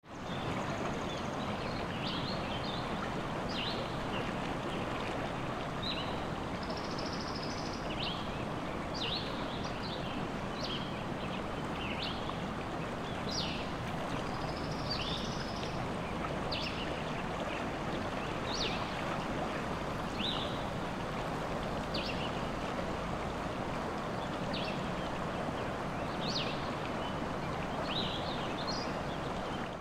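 Forest ambience: a brook or stream runs with a steady rush of water, while small birds give short, high chirps every second or two throughout.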